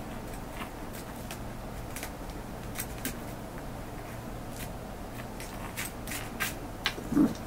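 Kittens' paws and claws scuffling and tapping on a plastic-backed pet pad: light, scratchy ticks and rustles, coming more often in the second half. Near the end comes one short, louder, low-pitched sound.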